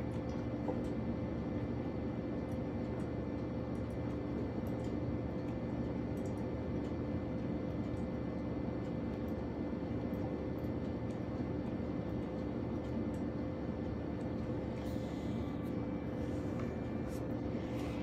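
EcoFlow River portable power station's cooling fan running steadily under a load of about 537 W from a brewing drip coffee maker, a constant whirring hum. Two short hisses come near the end.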